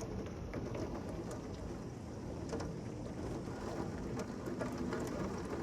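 Heavy rain pouring down steadily, an even hiss with scattered ticks of individual drops striking nearby.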